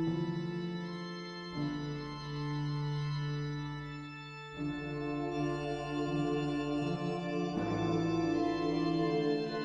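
Background music of sustained organ-like keyboard chords, moving to a new chord about every three seconds.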